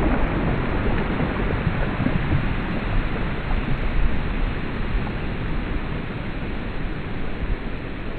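Surf washing up over sand: a steady rushing wash that slowly eases.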